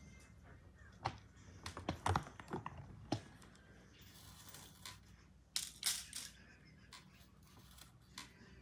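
A clear plastic compartment bead box and the small beads in it being handled: a run of light plastic clicks and rattles in the first few seconds, then a short scraping rustle a little past halfway.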